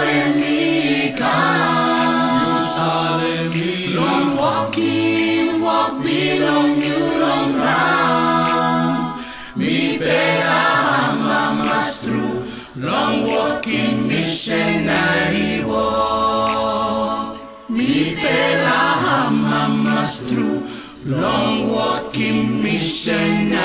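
A mixed group of men's and women's voices singing a gospel song in close harmony, largely unaccompanied, in phrases with brief pauses between them.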